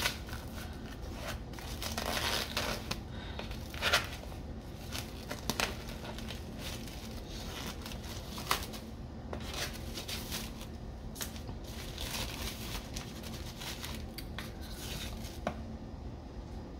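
Plastic film on a tray of sausage being torn open and crinkled: irregular rustling and crackling with a few sharper snaps.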